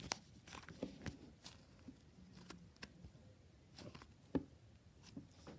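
Slime being played with by hand, giving faint, irregular clicks and pops, with one sharper pop about four seconds in.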